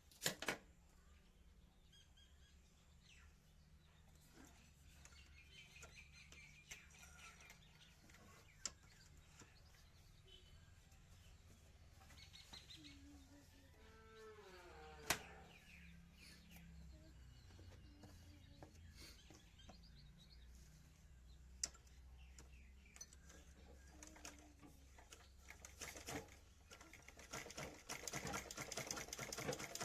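Sewing machine starting to run near the end, a fast rapid clatter, after a long near-quiet stretch broken by a few sharp clicks and a short run of bird chirps about halfway.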